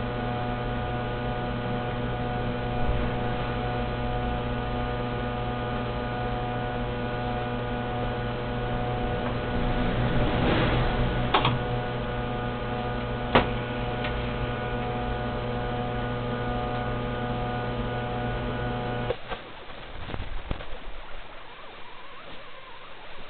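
Steady electrical hum from a disk punch machine, with two sharp clicks about two seconds apart midway as the strip of filter material is handled. The hum cuts off suddenly a few seconds before the end, leaving faint irregular handling noises.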